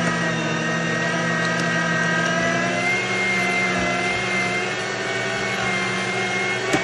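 Electric motor of a kitchen appliance running steadily, its hum wavering slightly in pitch as the load changes, with a short knock near the end.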